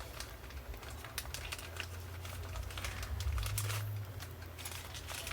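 Plastic packaging crinkling, with irregular small clicks and crackles as the kit's small plastic tools and bags are handled and unpacked.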